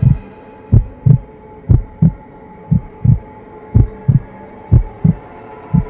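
Heartbeat sound in the soundtrack: paired low thumps, a double beat about once a second, over a faint steady drone.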